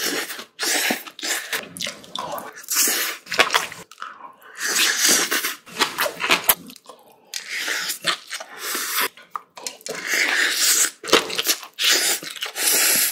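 Close-miked eating sounds: a person chewing and crunching mouthfuls of food in irregular, wet bursts.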